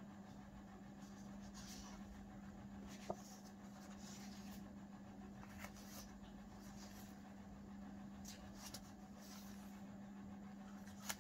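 Faint rustling and light taps of paper cards and booklets being handled, over a steady low hum. There are two sharper clicks, one about three seconds in and one near the end.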